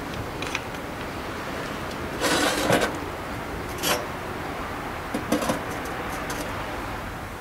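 Stainless-steel windscreen and pot stand being handled and set down around a brass alcohol stove on a table: a short metal clatter about two seconds in, then a sharp knock near four seconds and two more knocks a little after five seconds.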